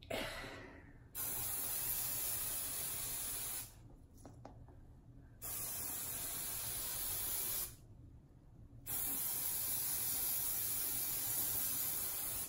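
Aerosol can of Apple Garde rain and stain repellent spraying in three long, steady hisses of two to four seconds each, with short pauses between them.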